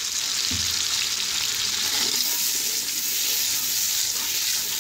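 Onions frying in hot oil and water in a steel pot, sizzling steadily while being stirred with a slotted metal spoon. A soft low thump comes about half a second in.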